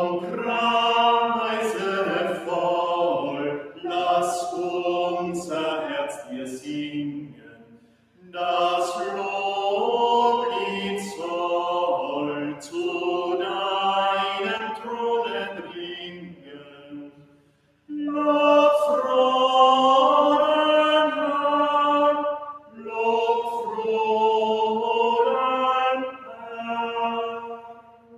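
A small group of singers singing an unaccompanied church hymn in four long phrases, each breaking off into a brief silence before the next.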